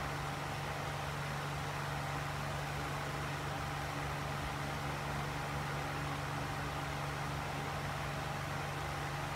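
Steady mechanical hum with an even hiss behind it, with no distinct events.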